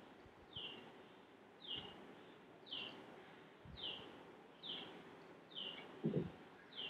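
A bird chirping faintly, a short, slightly falling high note repeated about once a second. A dull thump about six seconds in.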